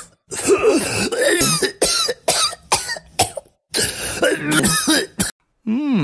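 A child's cartoon voice coughing over and over: a long string of hoarse, throaty coughs that stops about five seconds in.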